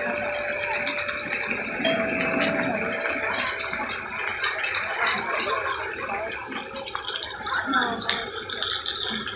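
Water running and splashing in a park water feature, a steady hiss, with children's voices in the distance.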